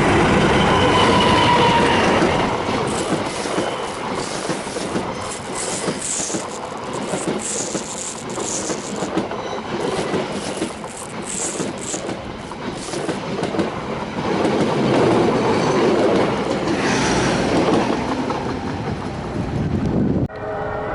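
Passenger train passing at speed, its wheels clattering over the rail joints, with brief high-pitched wheel squeals around the middle. The sound cuts off abruptly just before the end.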